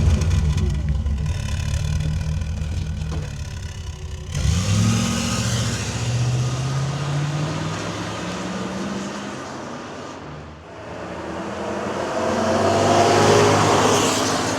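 Rover P6 3500's 3.5-litre V8 running and accelerating, its pitch rising sharply about four seconds in. The sound then fades, grows louder again to a peak near the end, and falls off.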